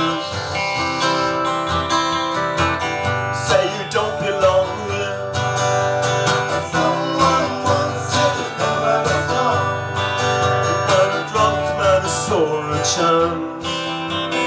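Two acoustic guitars playing an instrumental break in a live song: strummed chords with picked notes over them.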